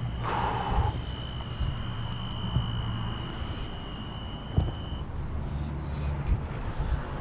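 Crickets chirping, short high chirps about twice a second, over a steady high-pitched tone that stops about five seconds in. Low rumbling footsteps and handling noise run underneath, with a brief rustle near the start.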